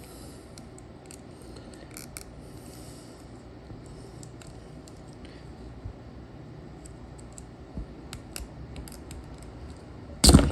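Small flathead screwdriver prying and twisting around the metal face cap of an ignition lock cylinder, light metal clicks and scrapes scattered throughout, then one loud knock near the end.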